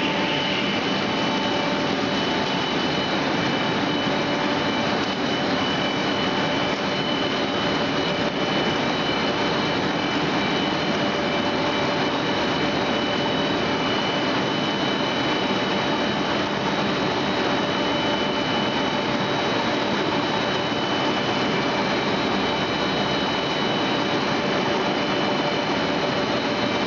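180-type EPE foam sheet extrusion line running: a steady machine noise with several high, steady whining tones over it.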